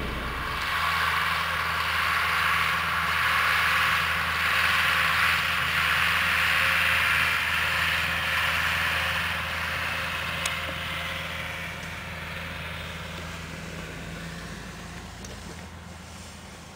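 Ursus C-360 tractor pulling two loaded trailers as it passes by, its engine running steadily under load with the rumble of the trailers. It is loudest about halfway through, then fades as it moves away.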